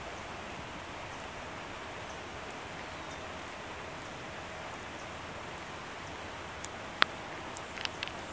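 Steady rain falling on trees and undergrowth, an even hiss, with a few sharp ticks of drops near the end, the loudest about seven seconds in.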